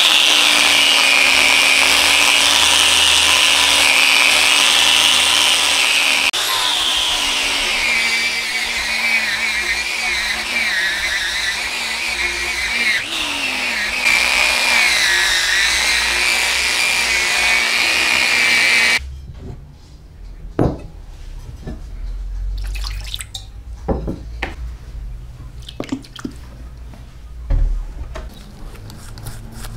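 Angle grinder with a red abrasive wheel running against a metal lawn mower handle tube, its whine wavering as it is pressed on and moved along. It stops abruptly about two thirds of the way in, and scattered light clicks and knocks follow.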